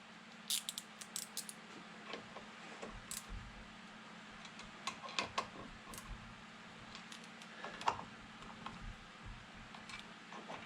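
Scattered light metallic clicks and clinks at irregular intervals, from parts and tools being handled at a bench vise as aluminum soft jaws are tightened down, over a low steady hum.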